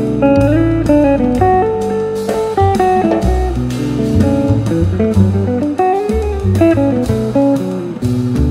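Instrumental background music: a plucked guitar melody over bass, with a steady beat.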